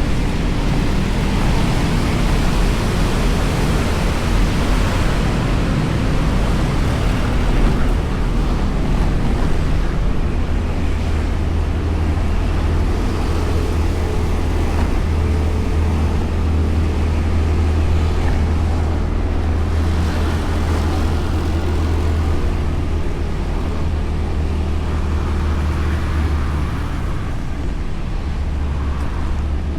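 Honda Beat scooter's small single-cylinder engine running on the move, with wind and road noise on a bike-mounted action camera. A steady low hum strengthens about a third of the way in and eases again near the end.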